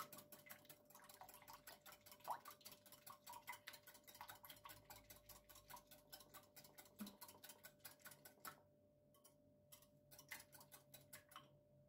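Faint, fast, even clicking of a wire whisk against a glass bowl as it beats a runny mix of egg, milk and oil. About eight and a half seconds in, the clicking thins to a few scattered taps.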